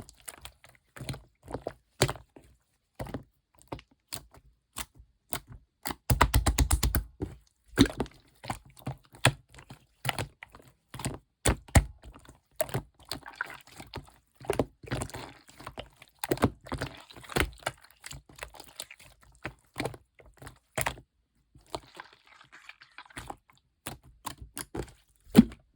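Clear slime being squished and pressed by hand, giving an irregular stream of sticky clicks and pops, with a fast run of clicks about six seconds in.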